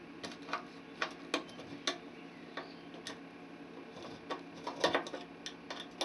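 A screwdriver turning out the cover screw of a burglar alarm control panel: a dozen or so light, irregular clicks and ticks, more of them in the second half, over a faint steady hum.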